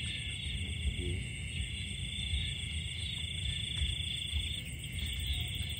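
Night insects chirring steadily in a continuous high-pitched chorus, with a low rumble underneath.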